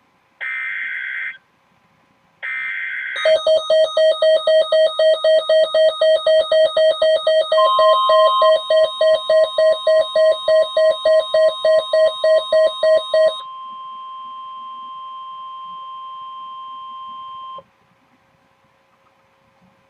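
Emergency Alert System header and attention signal: two short bursts of SAME data tones, then a loud pulsing alert tone at about three to four beats a second. About halfway through, a steady alarm tone of a NOAA Weather Radio warning joins in. It carries on alone after the pulsing stops and cuts off suddenly.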